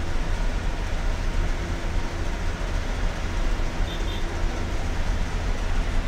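Steady low rumble of a car's engine and road noise heard from inside the cabin while driving on a wet road, with a hiss from the tyres on the wet surface. A faint short high chirp about four seconds in.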